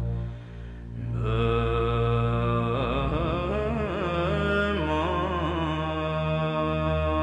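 Melodic chanting of a Tibetan Buddhist prayer to Guru Rinpoche over a steady low drone. The voice comes in about a second in and carries on, moving up and down in pitch.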